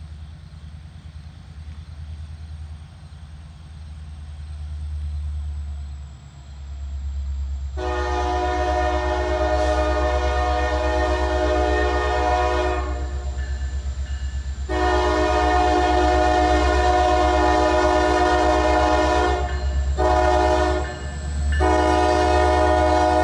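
Norfolk Southern SD60E diesel locomotive's air horn blowing the grade-crossing signal: two long blasts, a short one, then a long one that is still sounding at the end. Under it is the low rumble of the approaching train, growing louder.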